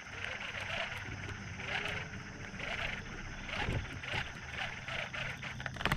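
Repeated animal calls, roughly one pulse a second, over a low steady hum.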